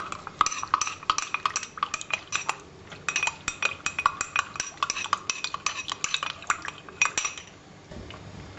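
A metal teaspoon clinking rapidly against the inside of a small glass while stirring cornflour into brandy to dissolve it. There are several ringing clinks a second, and they stop near the end.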